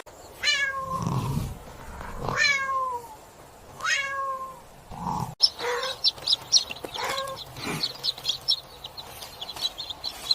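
Cat meowing: three drawn-out meows falling in pitch in the first four seconds, then a few shorter ones. From about halfway on, a quick run of high clicks runs under them.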